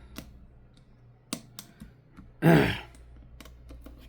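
Scattered light clicks and taps of a small screwdriver working the screws on a phone's back frame. About two and a half seconds in comes one short, loud vocal sound from a person.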